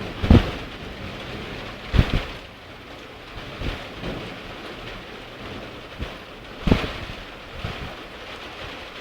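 Rain falling steadily during a strong thunderstorm, with several short sharp thumps, the loudest about a third of a second in and another at about two seconds.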